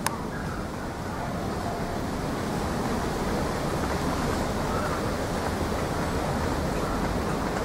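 Class 66 diesel locomotive approaching at the head of a train of hopper wagons, its two-stroke V12 engine a low steady rumble under a hiss like wind, slowly growing louder.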